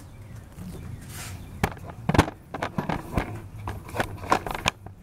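A string of sharp, irregular clicks and knocks, about a dozen over three seconds, starting about a second and a half in: handling noise around the car's engine bay.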